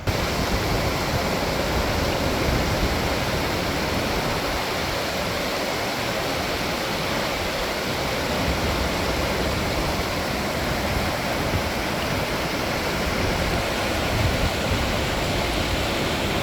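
Steady, loud roar of Takakkaw Falls, a tall waterfall, heard close up: continuous rushing water with no let-up.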